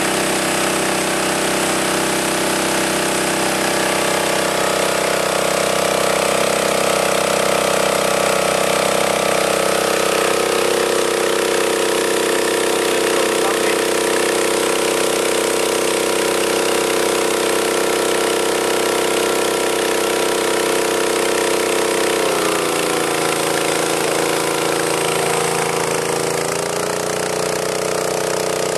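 Petrol-engine-driven high-pressure diving-air compressor running steadily, with the engine at full throttle. The engine note drops about three-quarters of the way through and comes back up a few seconds later.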